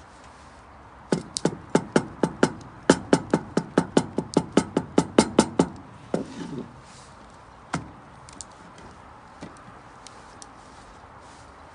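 Knife chopping: a quick, even run of about twenty sharp chops, roughly four a second, then a single chop a couple of seconds later and a few light taps.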